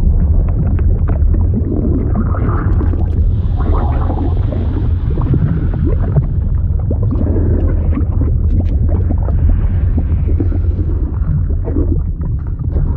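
Liquid ambience sound effect: a steady deep rumble with bubbling, gurgling sounds and small pops over it.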